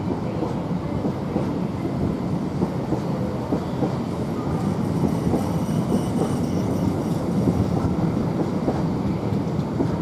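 Freightliner intermodal freight train's container wagons, many running empty, rolling past: a steady rumble of wheels on rail with frequent short clicks.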